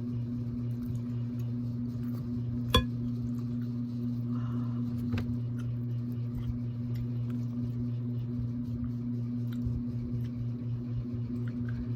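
Mukbang eating and tableware sounds: scattered small clicks and taps of seafood shells and utensils, with one sharp clink nearly three seconds in, over a steady low hum.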